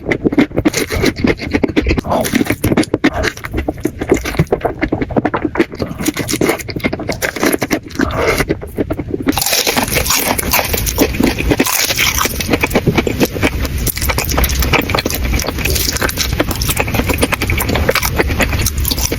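Crunching and chewing of fried chicken: a steady stream of crisp crackles and crunches that grows denser and louder about halfway through.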